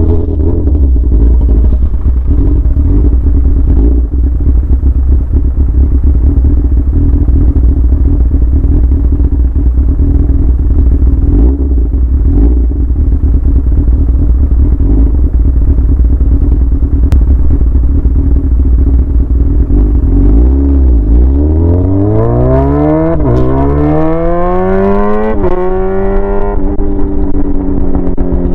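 Yamaha R6 inline-four running loud through a straight pipe with no muffler. It holds a steady note for about twenty seconds, then accelerates hard, the pitch climbing and dropping back sharply twice at the gear changes before settling.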